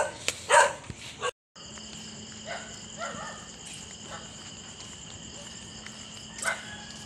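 Night insects trilling in a steady, high, unbroken ring, with a low steady hum beneath. A short louder sound cuts in once, near the end.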